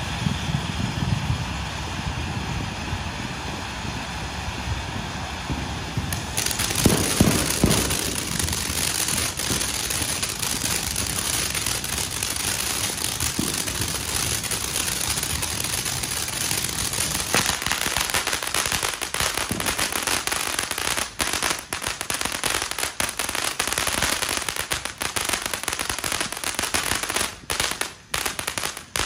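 Ground fountain firework spraying sparks with a steady hiss, a few heavier thumps about a quarter of the way in, and a fast crackle of tiny popping stars that grows denser through the second half.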